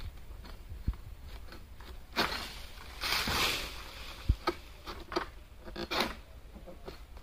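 Rustling and scraping of palm fronds and undergrowth in short bursts, the longest about three seconds in, with a few soft thumps.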